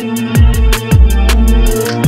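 Electronic background music with a steady beat: deep bass hits that drop in pitch and sharp cymbal-like ticks on top.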